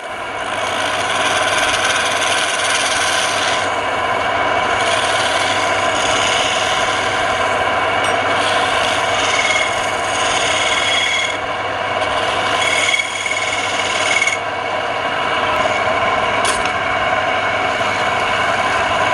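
Wood lathe running, with a tool or abrasive rubbing steadily against the spinning wooden workpiece.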